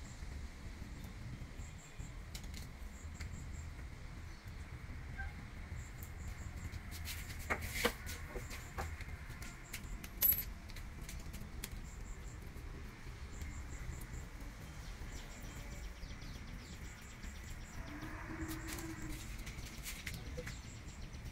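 A few sharp clicks and a clatter of plastic plumbing fittings being handled, loudest about ten seconds in, over a low steady rumble and short high chirps repeating in small groups.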